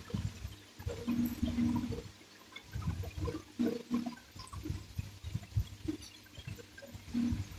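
Close-miked wet chewing and mouth sounds of a man eating: irregular squelches, smacks and small clicks.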